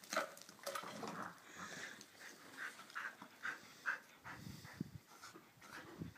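Border collie panting in short quick breaths while she plays with a stick, with a few soft low thumps in the second half.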